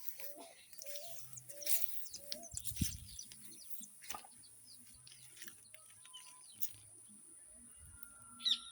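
Several birds chirping and calling over a steady high-pitched trill of crickets. A run of short, low repeated calls fades out about a second in.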